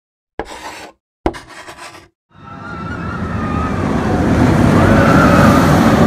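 Intro sound effects: two short sharp hits about a second apart, each dying away quickly, then a rushing rumble that swells steadily to its loudest near the end, with a faint wavering high tone over it.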